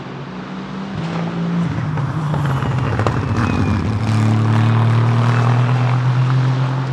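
Aston Martin Vantage GT3's Mercedes-AMG 4.0-litre twin-turbo V8 racing past at speed. The engine note shifts pitch in the first half, then holds steady, and it is loudest from about four seconds in.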